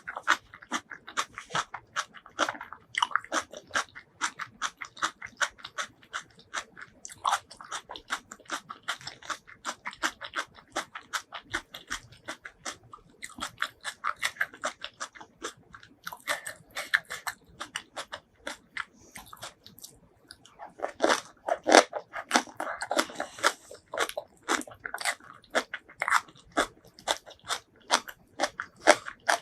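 Close-miked eating sounds: a person chewing and crunching food in a dense run of crisp, wet mouth clicks, busiest and loudest a little past two-thirds of the way through.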